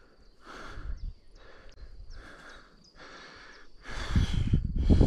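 Heavy breathing of a winded mountain biker catching his breath during a rest stop, about one breath a second, the breaths growing louder about four seconds in.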